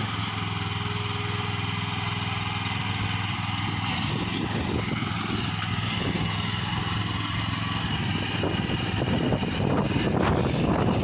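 Small 15 hp gasoline engine of a towable backhoe running steadily, growing a little louder and rougher near the end.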